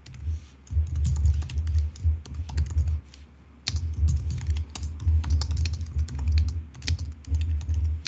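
Typing on a computer keyboard: a quick, uneven run of keystrokes with dull thuds, pausing briefly about three seconds in.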